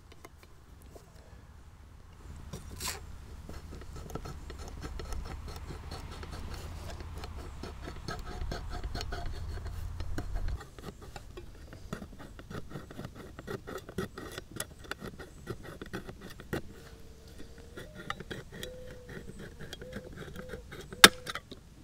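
P38 military can opener cutting open a tin can: a long run of small metallic clicks and scrapes as the blade is levered around the rim. One sharp, louder click comes near the end.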